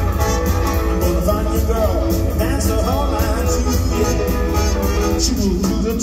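Live retro swing and rock 'n' roll band playing through a PA: electric guitar, drums and horns over a strong, steady bass line, with a sliding melody line above.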